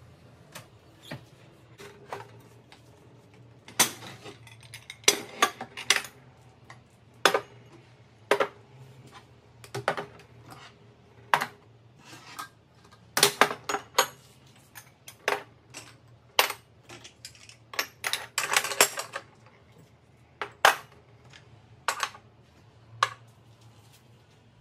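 Ceramic dishes and bowls clinking and knocking against each other as they are set into a kitchen drawer: many sharp, irregular clinks, some in quick clusters.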